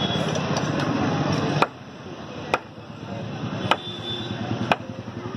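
A butcher's knife chopping through pork onto a wooden table, four sharp chops about a second apart, over steady background noise.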